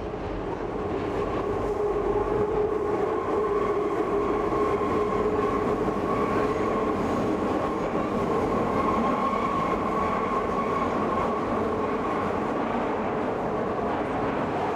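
Metro train running: a steady rumble with a held whine, fading in over the first couple of seconds.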